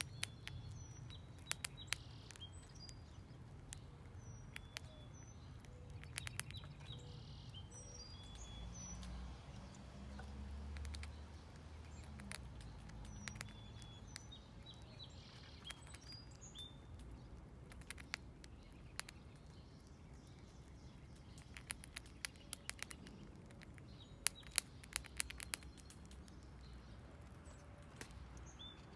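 Gray squirrel crunching dried corn kernels: sharp clicks in scattered clusters, the loudest bunches about six seconds in, midway and in the last third. Small birds chirp faintly, and a low rumble swells and fades about ten seconds in.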